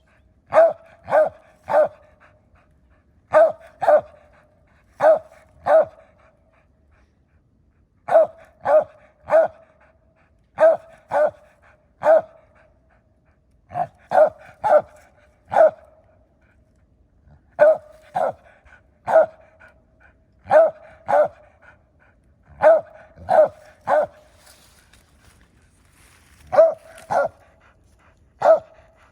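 Squirrel dog barking treed: short, sharp barks in quick groups of two or three, repeated every second or two, the sign that it has a squirrel up the tree.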